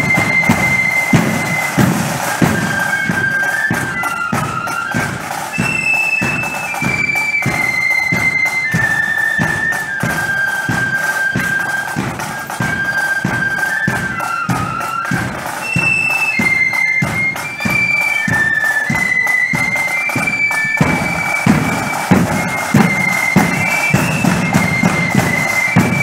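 Marching flute band playing a tune: a line of flutes carrying the melody over a steady marching drum beat.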